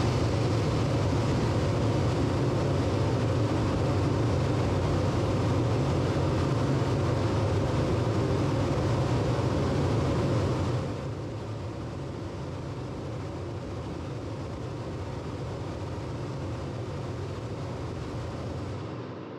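Loud, steady test noise played into an acoustic lab's reverberation room for a sound transmission (STC) test. It is a rushing hiss, heaviest in the low end. About ten seconds in it drops in level and turns duller, then runs on steadily until it cuts off just before the end.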